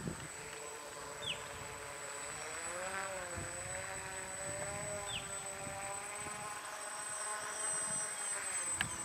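Radio-control model float plane's motor running at low throttle as it taxis on the water: a steady buzzing whine whose pitch dips and comes back up about three seconds in.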